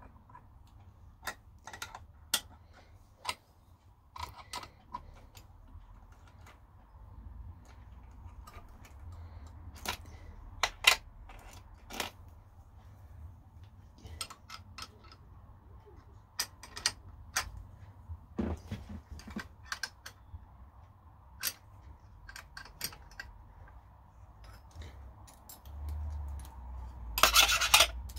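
Scattered metal clinks and taps of a spanner and clamping nuts and studs on the steel table of a mini milling machine, as a workpiece is clamped down. Near the end there is a short, louder clatter.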